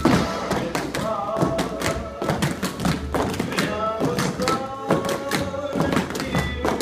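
Tap shoes striking a studio floor in many quick, sharp taps and stamps from several dancers, over recorded music.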